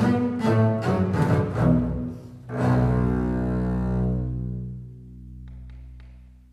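Quartet of bowed double basses playing a fast passage, then a final low chord about two and a half seconds in that is left to ring and slowly fade: the end of the piece. A few faint clicks come near the end.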